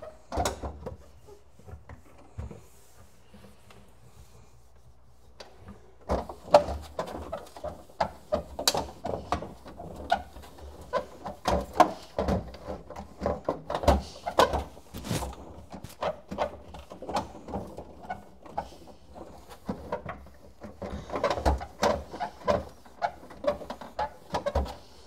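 Food containers and packages being handled and set down in a refrigerator: irregular knocking, clicking and rattling of plastic, several knocks a second, beginning about six seconds in after a quieter stretch with only a few clicks.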